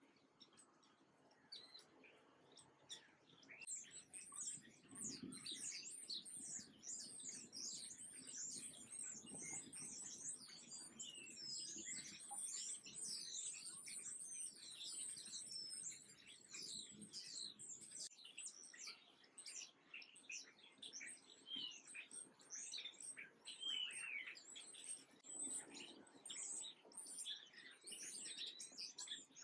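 A flock of small songbirds chirping, with many short, quick calls overlapping. The chirping is faint at first and fills in from about four seconds in.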